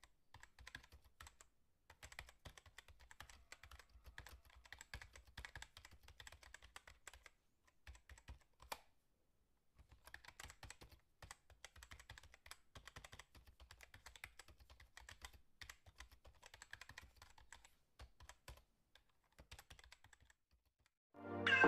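Faint, rapid computer keyboard typing: irregular key clicks, with a pause about eight seconds in. Music starts right at the end.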